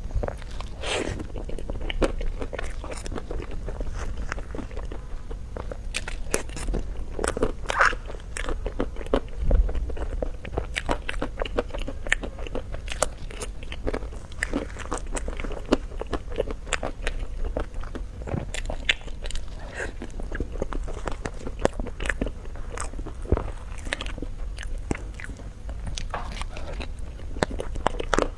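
A person biting and chewing crunchy food, with frequent irregular crisp crunches.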